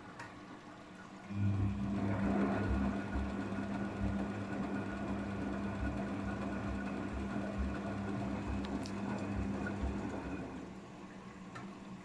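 Daewoo DWD-FT1013 front-loading washing machine running during the cooldown and drain stage of a hot drum-cleaning cycle. A steady motor hum starts about a second in and stops near the end, with low thumps of water sloshing in the turning drum.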